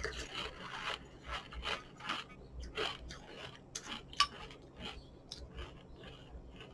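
A spoon clinking and scraping irregularly in a bowl of cereal and milk, busiest in the first few seconds.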